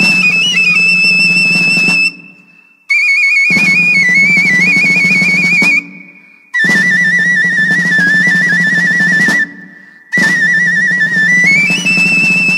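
Background music: a high, wavering melody over drums, played in phrases of about three seconds with short breaks between them.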